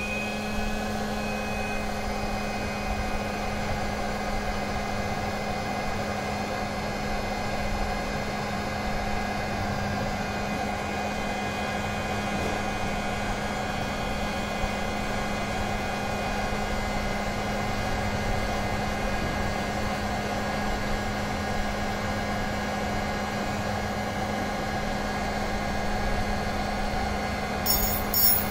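Electric heat gun running steadily, its fan motor giving a constant hum with a high whine as it blows hot air. A short burst of clicks near the end.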